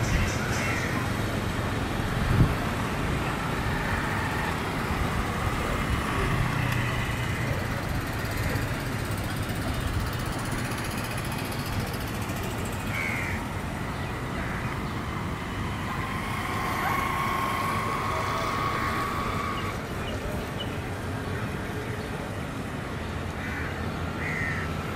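Steady low rumble of distant engines at an airport, with a sharp knock about two seconds in and a few short, high chirps.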